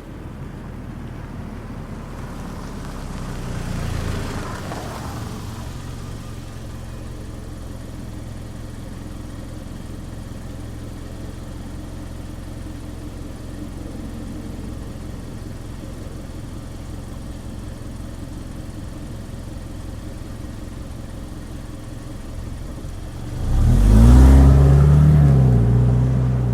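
Mazda CX-5 small SUV heard from outside: it pulls in, getting louder to a peak about four seconds in, then idles steadily. Near the end the engine revs up loudly with a rising pitch as it accelerates away, fading off.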